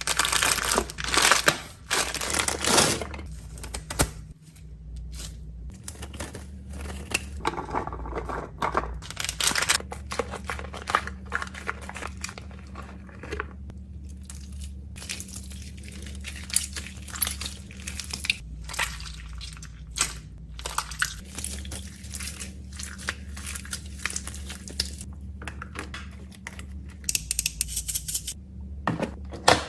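Fidget toys and their plastic packaging being handled and packed: crinkling and tearing with many quick clicks and taps.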